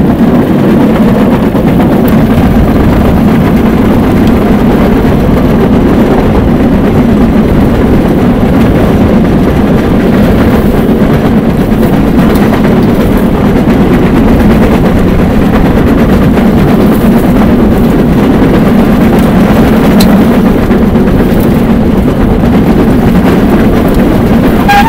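Rail bike running along the track at speed: a loud, steady rumble of its wheels and running gear on the steel rails, unbroken throughout.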